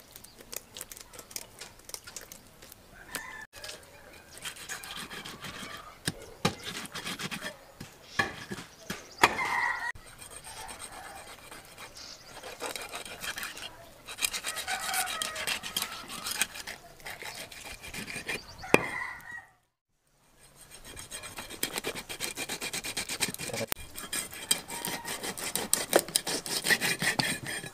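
Scissors scraping the scales off a snakehead (korra matta) fish, then a curved knife sawing and chopping through the fish on a wooden block: rapid rasping strokes, broken by a brief gap about two-thirds of the way through.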